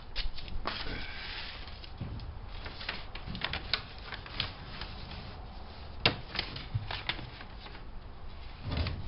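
Painter's tape being pulled and handled: irregular crackling clicks and rustles, with a sharper snap about six seconds in.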